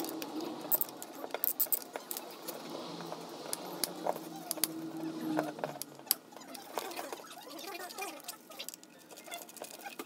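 Hand tools clicking and clinking on the bolts of a Yamaha Maxam scooter engine as a socket wrench is worked and parts are handled: a scattered run of sharp ticks and small metal knocks, busiest in the first half.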